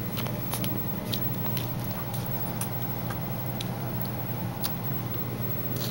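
Puppies eating, with small, irregular clicks and smacks of biting and chewing, over a steady low hum.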